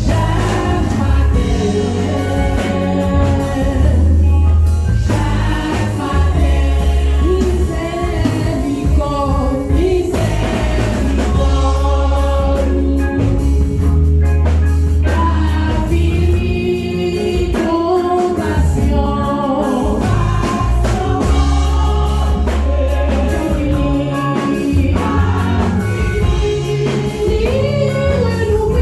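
Church worship team singing a gospel song, several voices together, over sustained bass notes that change every couple of seconds.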